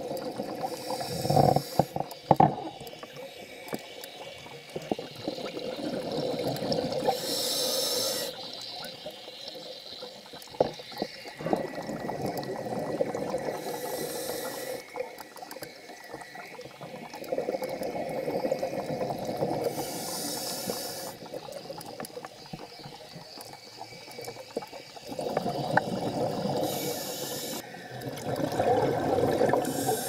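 Scuba diver breathing through a regulator underwater: a short hiss on each inhale, then a longer bubbling rush as the exhaled air escapes, repeating about every six seconds. A few sharp knocks about two seconds in.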